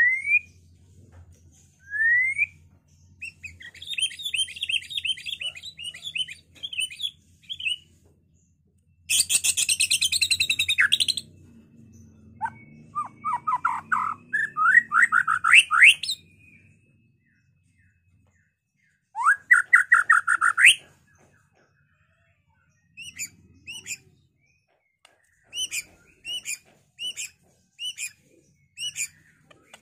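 White-rumped shama singing a long, varied song: rising whistled notes, fast trilled phrases, a harsh rattling chatter about nine seconds in, quick runs of rising notes, and short repeated notes near the end.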